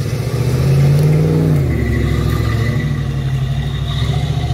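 An off-road 4x4's engine revving as it drives on a spotter's go, rising in pitch about a second in and then holding steady, high revs.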